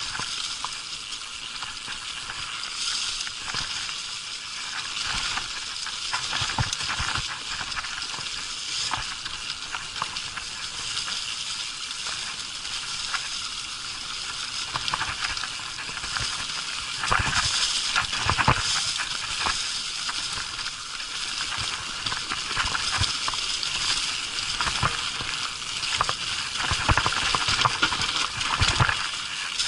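Mountain bike tyres rolling over a thick layer of dry fallen leaves: a continuous rustle, with frequent clicks and knocks from the bike rattling over the bumpy trail, louder about halfway through and near the end.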